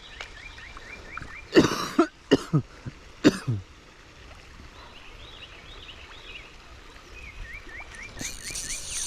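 A person coughing several times in a row, about one and a half seconds in. A bird sings a quick series of short rising whistled notes, at the start and again near the end, and a high hiss comes in near the end.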